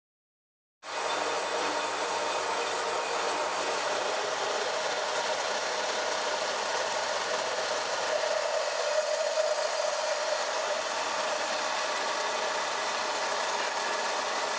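Metal-cutting saw running and cutting through rectangular steel tube: a steady mechanical hum and grinding hiss that starts abruptly about a second in.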